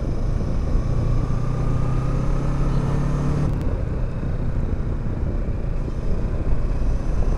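Kawasaki Versys 650's parallel-twin engine running while under way, under heavy wind rush on the microphone. A steady engine note breaks off suddenly about three and a half seconds in, and the running sound carries on without it.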